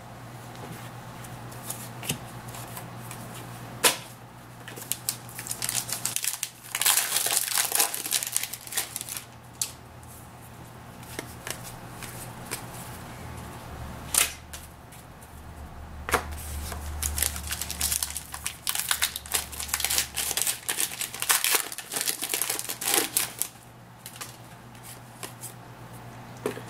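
Trading card pack wrappers crinkling and tearing as packs are opened, with cards handled and shuffled by hand: irregular rustling and crackling with scattered sharp clicks. A steady low hum runs underneath.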